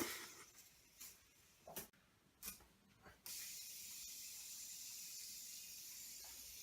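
Fidget spinner handled with a few light clicks, then set spinning about three seconds in: a steady high whir from its bearing that fades slightly as it slows.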